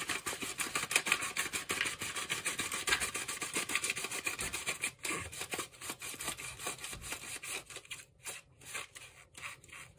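Plastic 120 developing-tank reel being twisted back and forth to feed film along its spiral: rapid clicking from the reel with the film rubbing against the plastic, sparser near the end.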